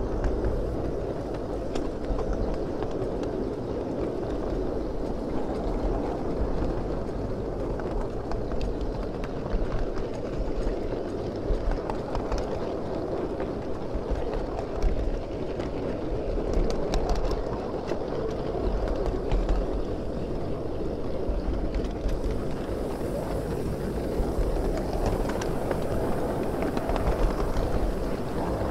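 Miniature ride-on train rolling along its track: a steady rumble of wheels on rail, with scattered sharp clicks.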